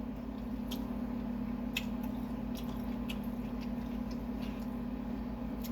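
A person chewing takeaway noodles: scattered small wet clicks and smacks of eating, over a steady low hum.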